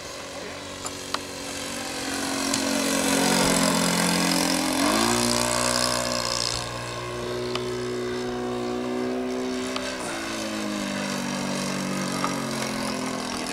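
Radio-controlled model aeroplane engine running in flight overhead. Its pitch slides down as the plane passes, then jumps up sharply as the throttle opens about five seconds in, holds steady, and drops back about five seconds later.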